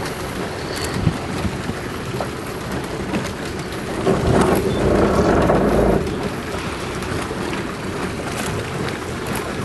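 Wind buffeting the microphone over the rush of sea water around a boat, with a louder, deeper gust about four seconds in that lasts about two seconds.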